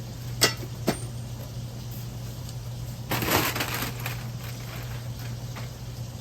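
Parts and box packaging being handled while unpacking: two sharp knocks in the first second, then about a second of crunching rustle, over a steady low hum.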